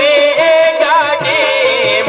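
Live Pothwari folk music: a harmonium and a benju (keyed bulbul tarang) play a wavering, ornamented melody over a steady, evenly repeating drum beat.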